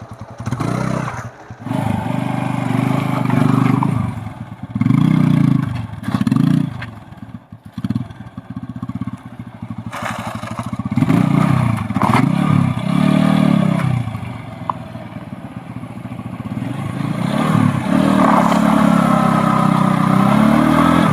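TVS Apache RTR 180's single-cylinder engine revving in several surges as the motorcycle is pulled away uphill in first gear with the clutch let out sharply. There is no grinding or slipping noise from the chain drive: the newly fitted front sprocket is holding.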